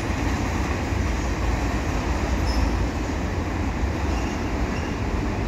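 Freight train of enclosed autorack cars rolling past at steady speed: a continuous, even rumble of steel wheels on rail.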